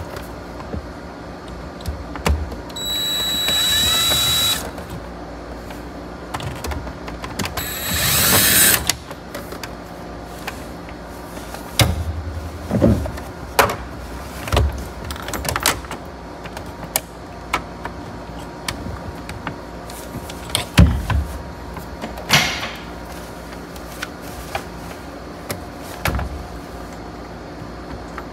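Cordless drill run in two short bursts: a steady whine for about two seconds near three seconds in, and a briefer, louder run near eight seconds, likely starting pilot holes for the stereo mounting screws. Between them, scattered clicks and knocks of the plastic dash panel being handled.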